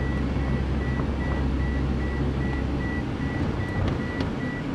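Car in motion heard from inside the cabin: a steady low road-and-engine rumble that eases off about three seconds in, with a few light knocks near the end.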